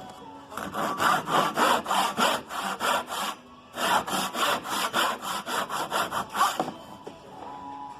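Hand saw cutting into a piece of wood in quick back-and-forth strokes, about four a second, in two bouts with a short pause between them. The cut is a half-depth cut for a half-lap joint.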